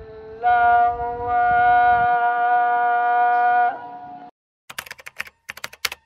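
Intro background music: one long held note with many overtones over a quieter drone, fading out about four seconds in. Then comes a quick run of sharp clicks, like keyboard typing, just before the title card.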